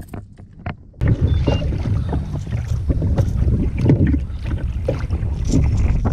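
Wind buffeting the microphone in a loud, low rumble that starts abruptly about a second in, over water slapping on a kayak. Scattered light clicks and knocks sound through it.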